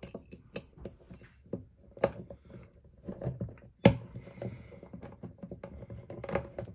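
Small metal bolts and a hex key clicking and tapping against a skate sole plate as the bolts are fitted into the six-mount holes. One sharp click about four seconds in is the loudest.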